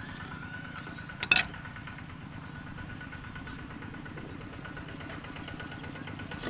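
Cleaver knocking on a wooden stump chopping block while chilies are cut: one sharp knock about a second in and another near the end. Under it runs a steady low, evenly pulsing engine-like hum, like a small engine idling.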